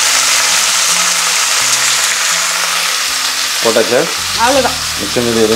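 Chopped onion with a mustard-seed, cumin, fennel, curry-leaf, mint, green-chilli, garlic and ginger tempering sizzling in hot oil as it sautés: a steady frying hiss. Background music plays under it, and a melody line comes in a little past the middle.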